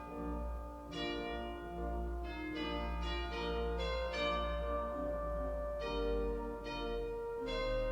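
Instrumental music: a melody of changing notes over held chords and a steady low bass note.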